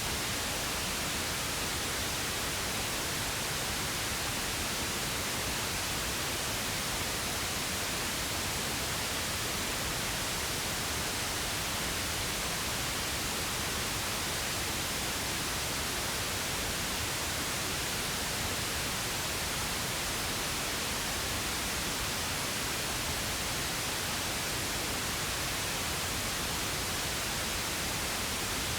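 Steady, unchanging pink noise: an even hiss spread across the whole range.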